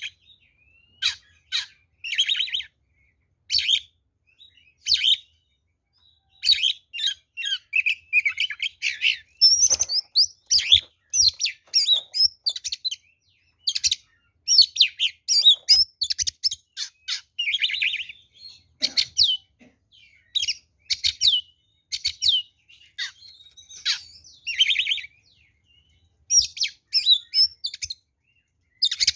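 Oriental magpie-robin (kacer) singing loud, varied phrases of sharp whistles mixed with harsh buzzy notes, broken by short pauses. It is an aggressive, combative song of the kind used to goad other magpie-robins into answering.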